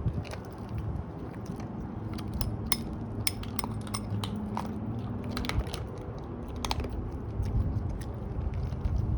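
A dog chewing, with irregular sharp crunches, over a steady low hum.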